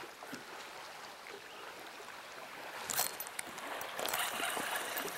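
Choppy lake water slapping against a fishing boat in the wind, a steady wash with a sharp click about three seconds in and a few lighter ticks after it.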